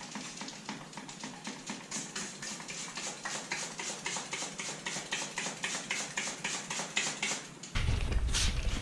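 Aerosol can of engine degreaser being shaken, its mixing ball rattling in quick, even clicks about five times a second. A low rumble comes in near the end.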